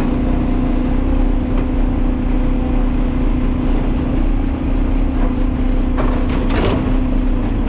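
Side-load garbage truck's engine running with a steady hum while the automated arm reaches out to a trash cart; a few knocks about six seconds in as the arm's grabber closes on the cart.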